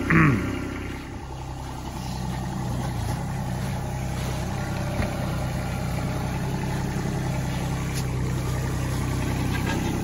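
Ditch Witch stand-on compact tool carrier's engine running steadily while its log grapple handles log sections.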